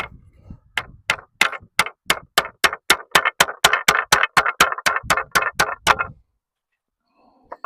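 Hammer driving a nail into the timber of a wooden frame: a fast, even run of about twenty sharp blows, about four a second, stopping about six seconds in.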